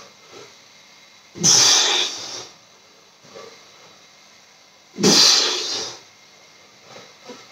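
A man exhaling hard through the mouth twice, about three and a half seconds apart, each breath about a second long, with faint breaths in between. This is the paced breathing of someone working through repetitions of a core exercise.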